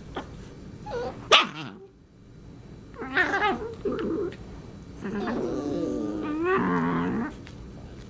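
Wirehaired dachshund puppy making wavering, warbling growls and grumbles in play. There is a short sharp yelp about a second in, then two longer bouts.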